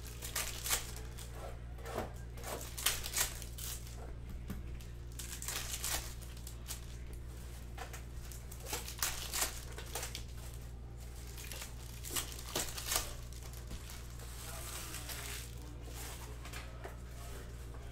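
Foil wrapper of a Topps Chrome baseball card pack crinkling and tearing as it is pulled open by hand, in scattered short crackles, while the cards are handled.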